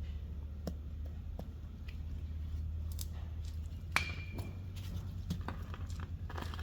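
Light clicks and clinks of hand tools being handled after a tire plug is set, with one sharper metallic clink about four seconds in that rings briefly, over a steady low hum.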